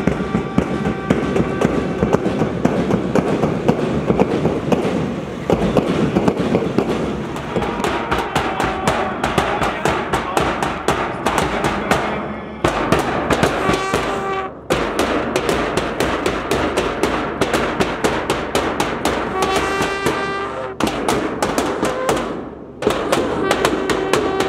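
School marching band playing: a bass drum and snare drum beaten in a fast, dense rhythm with hand cymbals, and a brass bugle sounding held notes in several stretches. The playing breaks off briefly a few times.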